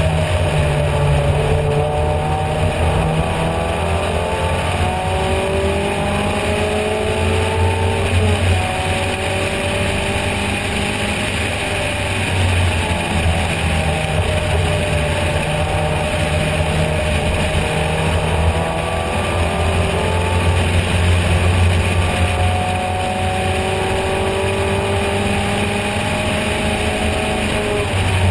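Triumph TR4's four-cylinder engine pulling hard at racing speed, heard from the cockpit with wind rushing past. The engine note climbs steadily and drops back several times as the driver shifts up or lifts, roughly every four to six seconds.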